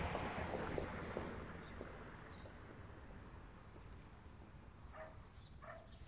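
A dog whining faintly, with two short whines near the end. A broad rushing noise fades out over the first couple of seconds.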